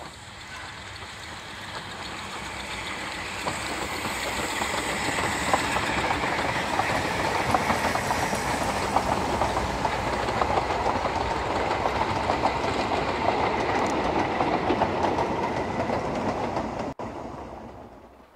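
Narrow-gauge steam train running past with its coaches, wheels clicking over the rail joints. It grows louder over the first few seconds as the locomotive comes up, holds as the coaches roll by, then cuts off abruptly about a second before the end.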